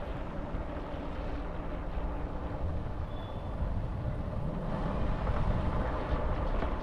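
Motorcycle engine running steadily while riding, with road and wind rush, a little louder in the second half.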